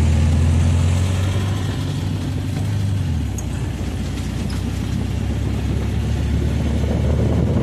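Engine of a small open handlebar-steered vehicle running as it drives along a dirt track, with road and wind rumble. A steady low engine drone dominates for the first three seconds, then drops away to a rougher rumble.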